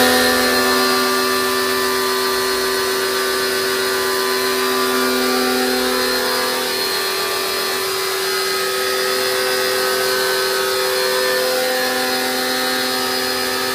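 Electric pressure washer running steadily, with a steady motor whine over the hiss of the water jet as it sprays a car.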